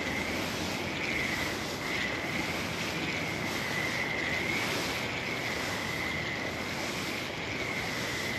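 Steady rushing noise of flowing river water and wind on the microphone, with a faint wavering high whine over it.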